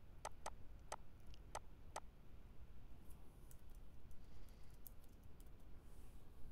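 Faint clicking of a computer keyboard and mouse: about five sharp clicks in the first two seconds, then lighter key taps.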